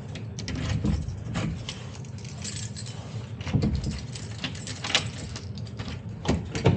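Keys jangling and clicking as a tram's driver's cab door is closed and locked, with several sharp knocks from the door and latch, over a steady low hum.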